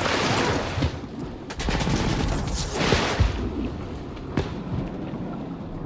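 Film battle sound: rapid machine-gun fire with sharp cracks and bullets splashing into water as soldiers go over into the sea. About three seconds in, the sound turns muffled and dull as it shifts to the underwater view, with bubbling water.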